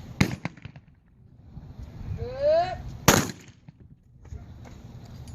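Shotgun shot at a trap competition about a quarter second in. About two seconds in comes a short rising vocal call for the target, then a louder shotgun shot about three seconds in.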